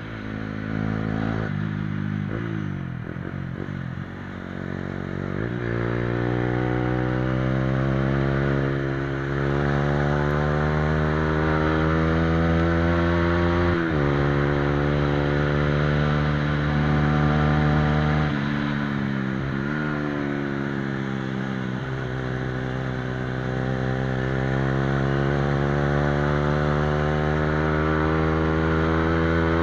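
Honda CBR125R's single-cylinder four-stroke engine through a replica Akrapovic exhaust, heard from on board while riding. The engine note climbs steadily in long pulls and drops sharply at two upshifts a little under halfway through, then pulls up again. Wind rushes over the engine throughout.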